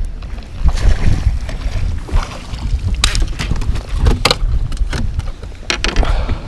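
Wind buffeting the microphone, a heavy, uneven low rumble, with a few sharp knocks or clicks near the middle.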